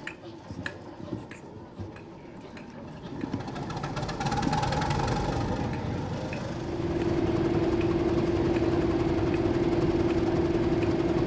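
Diesel locomotive engine starting up about three to four seconds in and then running steadily, with a steady droning tone joining about two-thirds of the way through. A few sharp clicks come near the start.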